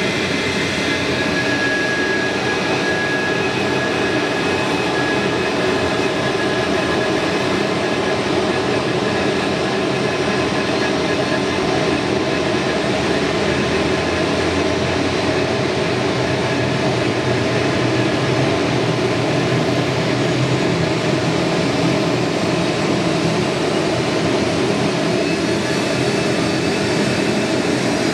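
Bombardier CRJ-200's rear-mounted GE CF34 turbofan engines idling steadily while the jet stands still, a high whine over a broad jet rush.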